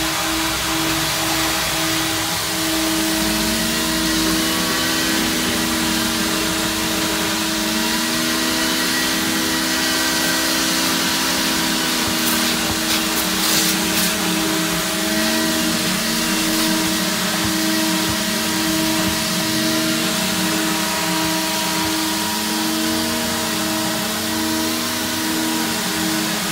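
Car-wash self-service vacuum running steadily with a motor whine. A lower tone in it slowly wavers up and down throughout.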